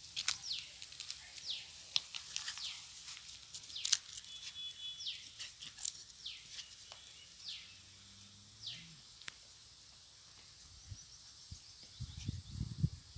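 Small birds chirping outdoors: scattered short, quickly falling chirps and a few clicks over a steady high hiss. Near the end come several low thumps.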